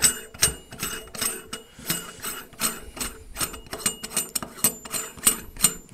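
Threaded chrome cover of a dual control shower valve being spun off its long thread by hand, giving a quick run of light metallic clicks, about three or four a second.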